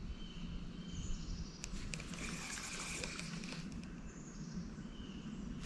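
Faint swamp ambience: a few short, high, steady whistled animal calls every couple of seconds, with a cluster of faint clicks and rustles around the middle.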